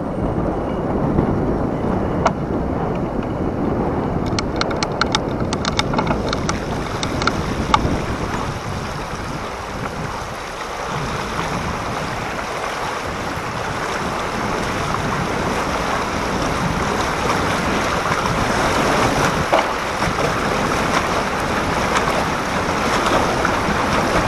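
Floodwater churning and splashing as a bicycle is ridden through deep water, with wind buffeting the microphone. A run of quick clicks comes about four to seven seconds in.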